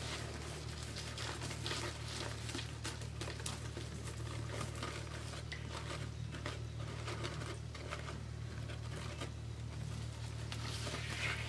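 Poly deco mesh and a fabric poinsettia rustling and crinkling in short irregular strokes as they are handled on a mesh wreath, over a steady low hum.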